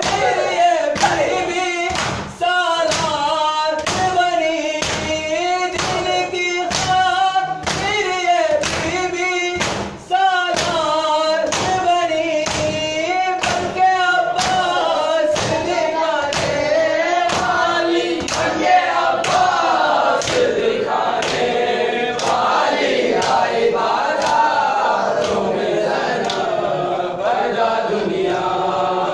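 A group of mourners chanting a noha in unison to regular chest-beating (matam), about two strikes a second. The strikes are sharpest in the first half; after about 20 s the voices thicken and the beats blur into the singing.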